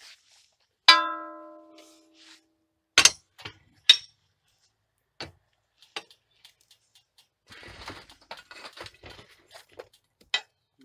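Steel tools and fittings clanking on a steel firebox. One loud ringing clang comes about a second in, then two sharp metal knocks as the firebox door is worked open with a steel rod, and a rattling scrape among the burning coal briquettes near the end.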